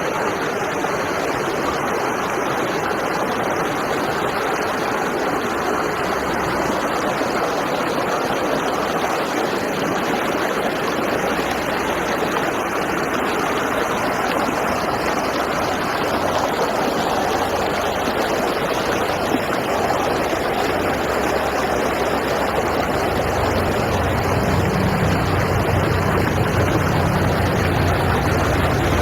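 Rushing water of a river or stream, a loud, steady rush. A low rumble joins in during the last few seconds.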